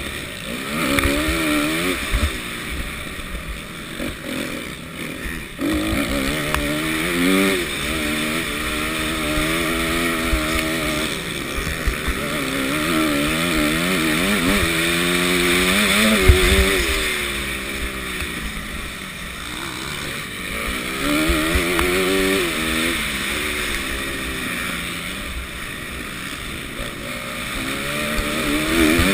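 Motocross bike engine revving up hard and falling back over and over as the rider accelerates and shuts off around a dirt track, with occasional thumps.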